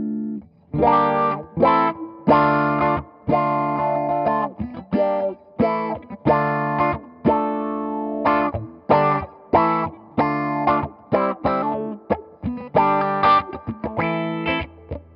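Electric guitar played through an Electro-Harmonix Q-Tron Plus envelope filter, in short separate chords and notes with a wah-like filter sound. The pedal's mix control blends the dry signal in with the band-pass filter.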